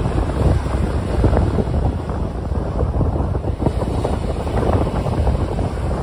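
Small waves breaking and washing up a sandy shore, a continuous fizzing surf, with wind buffeting the microphone as a steady deep rumble underneath.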